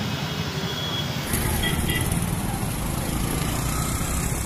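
Roadside traffic noise with a low rumble and scattered voices. About a second and a half in it changes abruptly and gets louder, with more low rumble.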